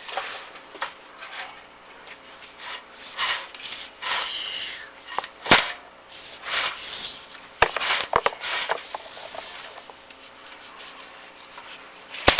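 Chimney inspection camera and its cable scraping and rubbing against the inside of a masonry flue as it is lowered down, in irregular scrapes with a sharp knock about halfway through and a few more shortly after.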